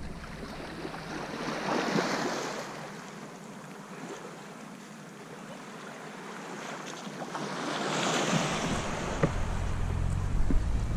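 Small waves washing on a pebbly shore, swelling and easing twice. Wind buffets the microphone from about two-thirds through, with a few short knocks near the end.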